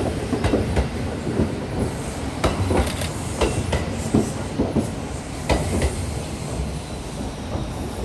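Kintetsu 8600 series electric train running past at close range: a steady low rumble with a rapid, uneven series of clacks as its wheels cross rail joints.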